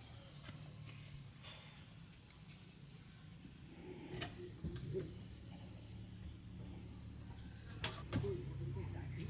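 Insects droning steadily at a high pitch, with a short run of bird chirps about four seconds in and sharp knocks about four and eight seconds in.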